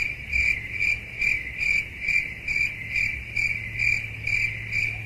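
Even, rhythmic high chirping like a cricket's, a little over two chirps a second, over a faint steady low hum.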